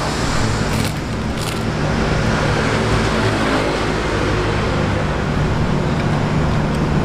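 Steady road traffic: vehicle engines running with a constant low hum. A couple of short, crisp crunches in the first two seconds as prawn crackers are bitten.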